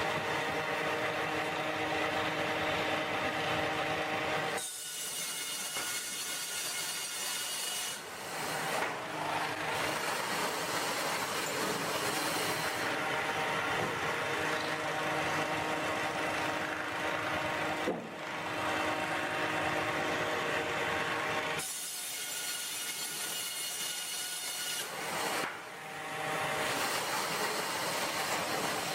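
Sawmill machinery running while a saw cuts through logs. The steady machine noise changes abruptly several times.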